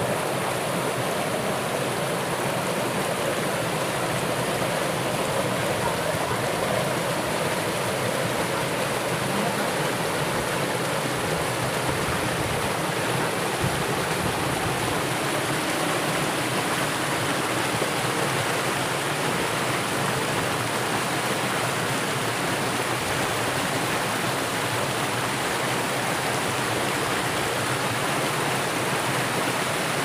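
Steady rushing and splashing of a shallow rocky stream pouring over rock ledges in a small waterfall, an even, unbroken water noise at close range.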